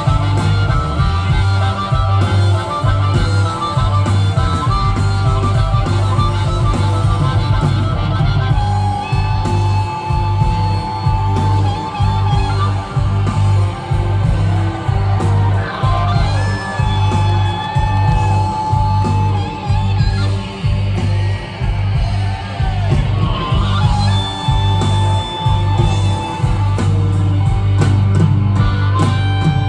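Live blues band playing amplified through a PA, with electric guitar over a heavy, steady bass and drum beat.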